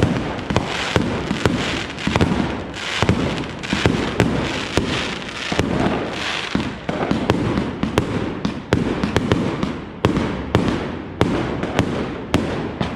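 A large multi-shot firework cake firing a rapid string of aerial shells, with sharp bangs several times a second over continuous crackling, heard from close underneath.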